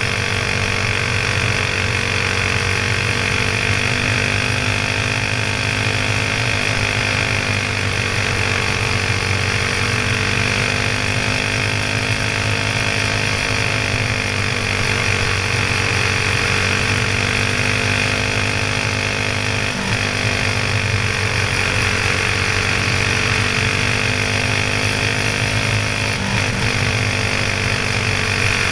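Honda-clone single-cylinder four-stroke go-kart engine running under load at speed, heard from the driver's seat. Its pitch rises and falls gently with throttle on the straights and through the turns of the oval.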